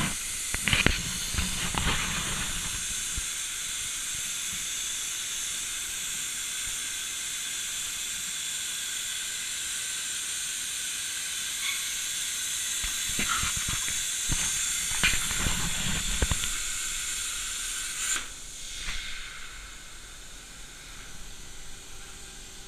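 Hypertherm Powermax 125 plasma torch on a CNC gantry cutter, cutting 5 mm steel plate: a steady high hiss of the plasma arc with occasional crackling. The hiss cuts off sharply about eighteen seconds in as the arc goes out, leaving a fainter hiss.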